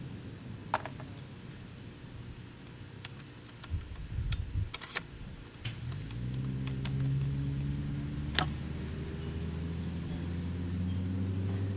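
Scattered light clicks and a few dull knocks, then about six seconds in a steady low engine-like hum from a motor starts up and keeps running.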